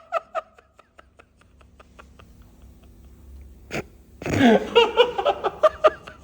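A quiet pause with faint, regular ticking, then a man laughing loudly about four seconds in, for around two seconds.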